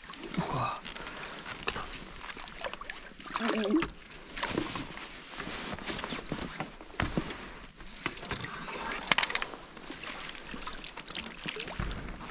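Water sloshing and dripping as a large Israeli carp is lifted out in a mesh landing net, with irregular splashes and rustling of the net and fish.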